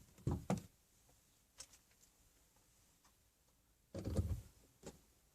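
A few light knocks and handling clatter: two just after the start, one faint tick, then a short cluster about four seconds in and one more knock after it.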